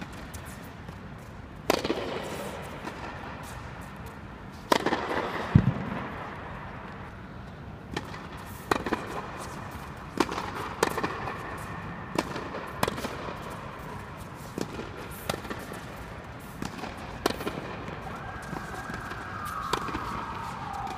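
Tennis balls struck by rackets in a rally: sharp pops at uneven gaps, about one a second. Near the end a squeak-like tone slides down in pitch.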